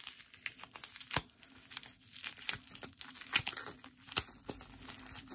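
Packing tape being picked and peeled by hand off a small bubble-wrapped package, with irregular crinkling of the plastic wrap and small tearing sounds.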